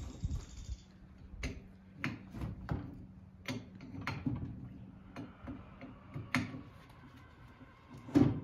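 Open-end wrench working a bolt on a tractor's top-link bracket as it is snugged up, giving sharp metal clicks about twice a second, with one louder knock near the end.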